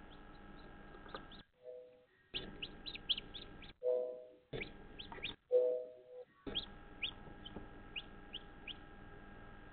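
Newly hatched chicks peeping inside an incubator: a run of short, high peeps, several a second, over a steady hum, with a few louder, lower calls in the middle where the sound briefly cuts out between them.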